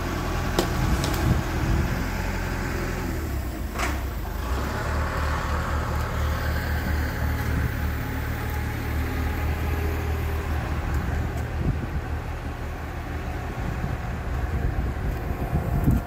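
An engine idling steadily with a low, even hum, and a short knock about four seconds in.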